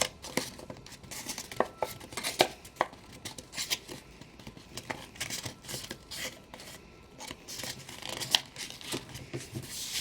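A sheet of paper being handled and creased as an origami bird is folded: irregular crinkles, rustles and sharp little paper snaps.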